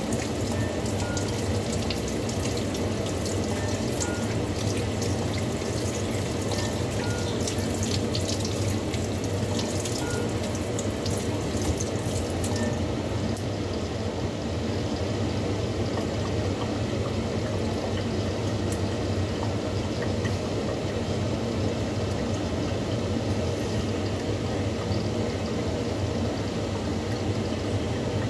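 Kitchen tap running into a sink while a raw chicken is rinsed under it, water splashing and crackling over the meat and hands. About halfway through the splashing eases off, leaving a steady background noise.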